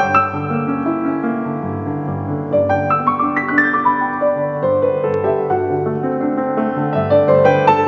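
Background piano music: single notes struck one after another, each ringing and fading over held lower notes.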